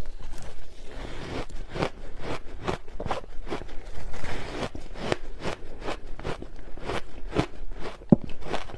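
Large chunks of ice coated in matcha powder being bitten and chewed, a steady run of sharp crunches at about two a second.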